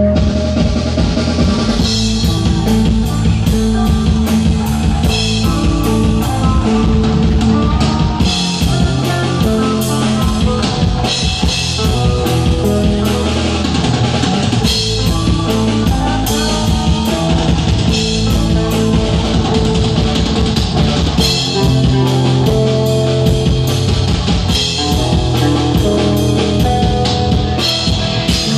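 Rock band playing an instrumental live: drum kit with frequent cymbal and drum hits over electric bass and electric guitar, steady and loud throughout.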